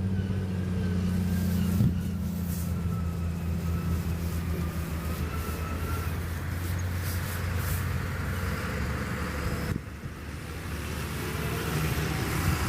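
Heavy diesel farm machinery at work during maize chopping: a steady low engine drone with a thin higher whine that drifts slowly in pitch. The sound changes abruptly about two seconds in and again near ten seconds.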